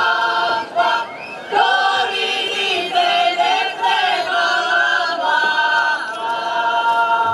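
A group of folk-ensemble men and women singing a folk song together in long held notes, with a short break about a second in.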